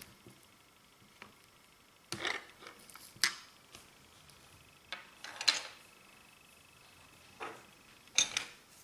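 Clear slime being mixed: a handful of separate squishes and sharp clicks, the loudest about three seconds in, about five and a half seconds in, and near the end.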